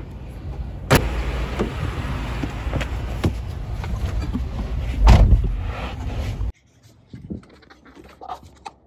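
Pickup truck doors shutting: a sharp knock about a second in and a heavier thump about five seconds in, over a steady rushing noise. It cuts off suddenly, leaving the quiet of the closed cab with a few small clicks.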